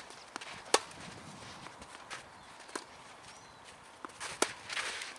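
Tennis ball being struck by rackets and bouncing on a clay court: a few sharp pops spread through, the loudest about three-quarters of a second in and again about four and a half seconds in, followed by a short hissing scrape on the clay.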